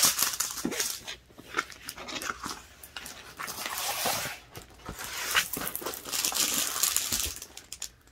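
A dog breathing and panting close to the microphone, in uneven breathy bursts that fade near the end.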